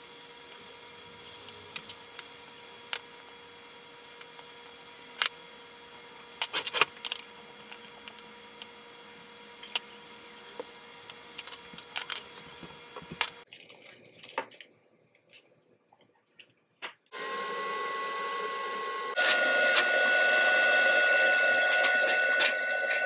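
A knife slicing scallops on a wooden cutting board, with scattered knocks and clicks of knife and dishes over a faint steady hum. Later a loud steady whir with a whine and a hiss comes in from the stovetop, where chopped onion and butter cook in a frying pan on a gas burner, and it steps up louder a couple of seconds after it starts.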